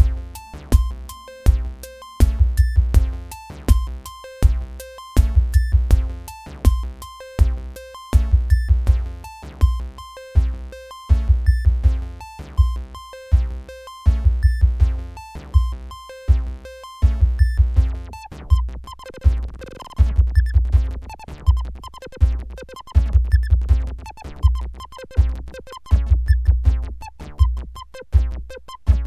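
Live electronic music from synthesizers and a modular drum module: a repeating pattern of deep bass-drum hits in tight clusters under short pitched synth blips. About 18 seconds in the upper part turns denser and more smeared while the bass pattern keeps going.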